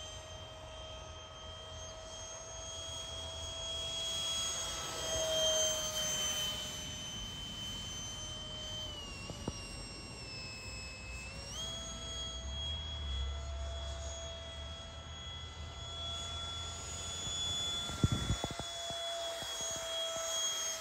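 The 64mm electric ducted fan of an RC jet whining steadily in flight. Its pitch drops for about two seconds near the middle, then steps back up. A few sharp clicks come near the end.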